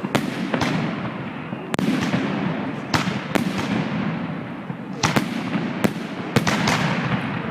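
Fireworks going off: about a dozen sharp bangs, unevenly spaced, over a continuous crackling rumble of more distant bursts.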